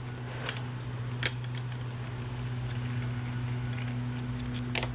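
A steady low hum from a fan or other running appliance, with a few light clicks and taps about half a second, a second and a quarter, and near five seconds in.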